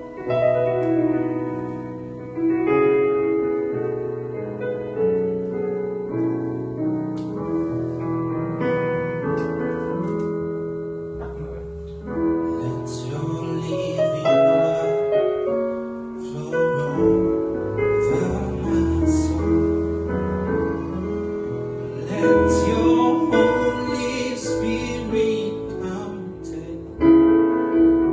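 A worship band's instrumental intro. Electric keyboard chords open it, then bass and cajón strokes join about twelve seconds in, filling out the groove.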